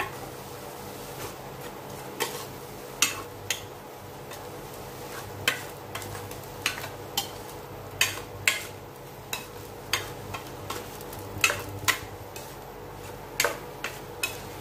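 A utensil stirring ground meat in a stainless steel pan, with irregular sharp knocks and scrapes of metal on the pan. A steady low hum from the induction cooktop runs underneath.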